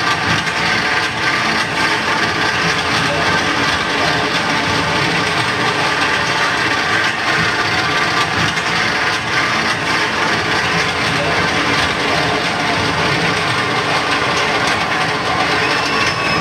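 Soundtrack of a roller-coaster ride-through video played over loudspeakers in a large room: a steady, loud rushing roar with a few held tones underneath.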